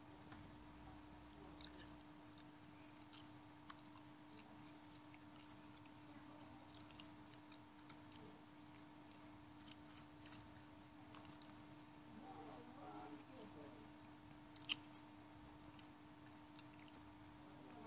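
Near silence: a faint steady hum with scattered soft ticks and clicks, two of them sharper, about a third and four-fifths of the way through.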